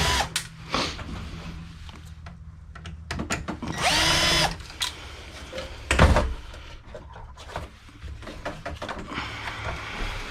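Cordless drill spinning up in short bursts, taking screws out of an old desktop computer's metal case. The longest whine, about four seconds in, rises, holds and falls. Clicks and knocks of the parts come in between, with a loud thump about six seconds in.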